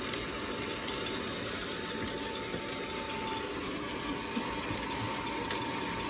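ROEST sample coffee roaster running mid-roast: a steady rushing of its fan and hot air, with a faint steady whine that drops out about halfway and returns near the end. A few faint small clicks sound over it.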